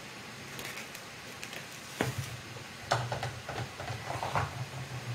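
Mushroom pieces and their containers being handled and dropped into a pan of wet spice marinade: scattered light clicks, a sharp knock about two seconds in and another about a second later, then small irregular clicks and rustling.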